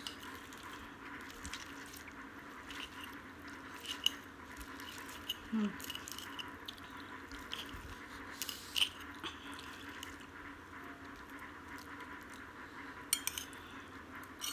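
Eating instant fried noodles: a metal spoon and fork clink and scrape on a ceramic plate, with chewing and wet mouth smacks in between. The sounds are scattered short clicks over a quiet background, with a small cluster near the end.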